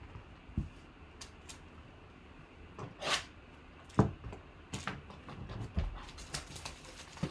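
A cardboard trading card box being handled and opened by hand: scattered knocks, taps and scrapes of cardboard against hands and table, with the sharpest knock about four seconds in.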